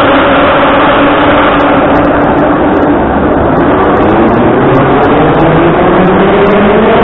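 Moscow Metro train pulling out along the platform. The electric traction motors whine over the rumble of wheels on rail, and the whine climbs steadily in pitch from about halfway through as the train gathers speed.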